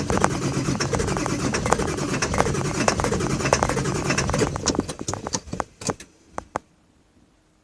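Ford 7.3-litre Power Stroke diesel engine of a 2000 F-550 turning over in a hard start, which the owner puts down to injectors in need of replacement. The sound stops about five seconds in, followed by a few scattered clicks.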